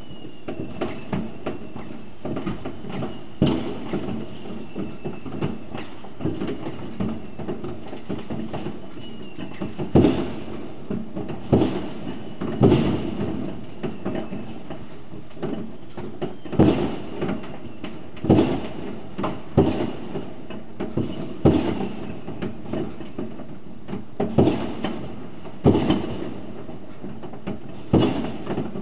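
Fireworks going off across a city: a continuous din of distant bangs and crackling, with sharper, louder bangs every second or so, thickening from about ten seconds in. A faint high whistle runs through the first half.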